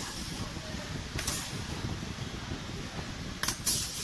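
Pneumatic blind-rivet gun setting rivets in a stainless-steel stove body, firing in short bursts of hissing air: one near the start, one at about a second in, and two close together near the end. A steady factory hum runs underneath.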